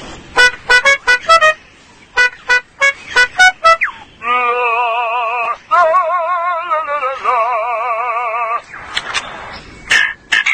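Superb lyrebird singing a song of mimicked sounds: two quick runs of short beeping notes, then a long warbling, siren-like electronic tone with one short break, and a burst of rapid chirps near the end.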